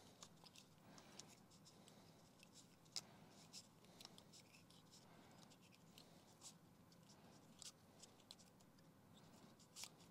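Faint, scattered crackling and ticking of PTFE (Teflon) thread-seal tape being stretched and wound clockwise onto the threads of an electric anode rod.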